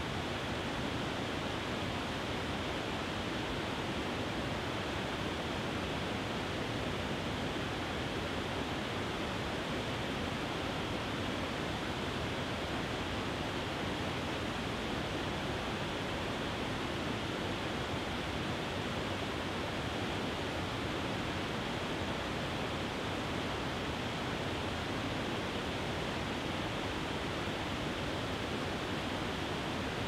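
Small waterfall pouring over a low rock ledge into a river pool: a steady, unbroken rush of falling water.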